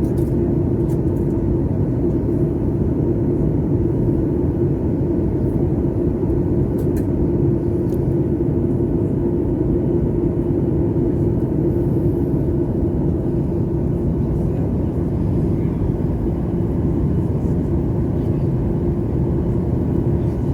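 Airliner cabin noise heard from inside the passenger cabin during the approach to landing: the steady rumble of the jet engines and airflow, with a steady hum tone running through it.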